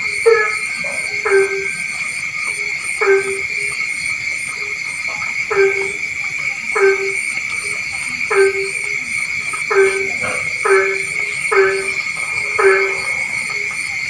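Frogs calling at night, one short call about every second, each a low note with higher overtones, over a steady high-pitched chorus that pulses rapidly.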